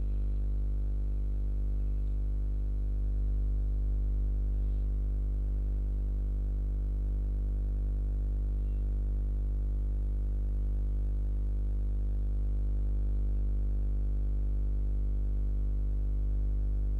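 Steady electrical mains hum with a row of evenly spaced overtones, unchanging throughout, picked up by the recording chain of a microphone.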